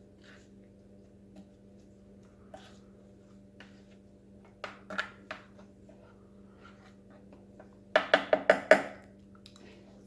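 A utensil clinking against a dish: a few light clicks about halfway, then a quick run of about six sharp clinks near the end, over a steady low hum.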